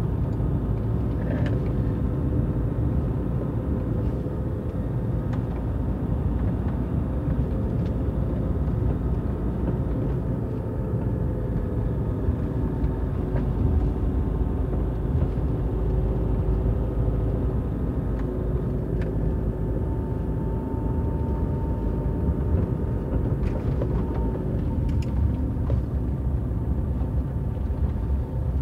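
Car driving along a road: a steady engine and tyre rumble with a faint hum over it and a few light clicks.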